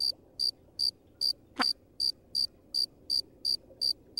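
Field cricket chirping in a steady, even rhythm of short high chirps, close to three a second. It is the comedy cue for dead silence after a joke falls flat.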